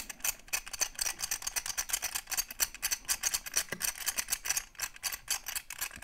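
Combination wheels of a Master Lock 5415D key lockbox being spun hard with the thumbs to scramble the code: a fast, uneven stream of small clicks as the wheels ratchet from number to number.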